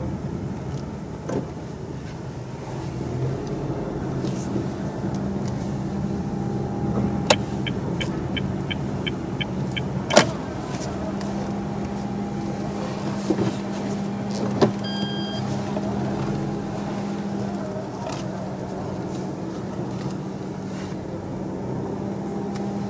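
A car's engine and cabin hum steadily as it rolls slowly, heard from inside the car. A quick run of small ticks, about four a second, comes about a third of the way in, with a few sharp clicks around it, and there is a short electronic beep a little past halfway.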